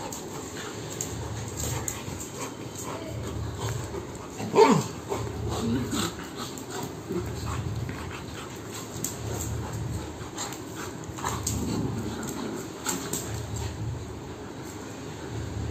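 A Labrador and a beagle play-fighting, with scattered short dog vocalisations. The loudest is one brief yelp about four and a half seconds in that falls steeply in pitch.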